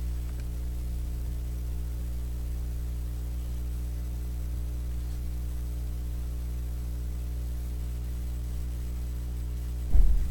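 Steady electrical mains hum, a low buzz with evenly spaced overtones, picked up by the recording setup. Near the end a brief low thump.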